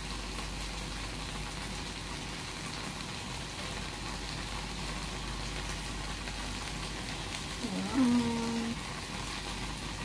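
Whole shrimp frying in cooking oil in a frying pan, a steady sizzle. About eight seconds in, a brief hummed voice sound, rising then held for about a second.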